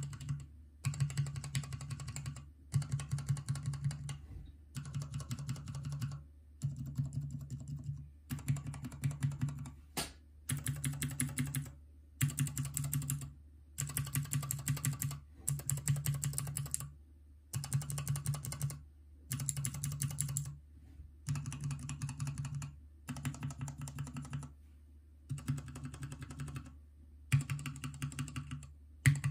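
Mechanical keyboard switches on a switch tester being pressed rapidly, a quick run of key clicks about a second and a half long, then a short pause, then the next switch, over and over. A faint steady low hum runs underneath.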